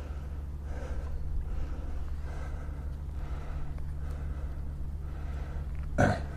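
A man's breathing close to the microphone over a steady low rumble, with one sharp knock near the end.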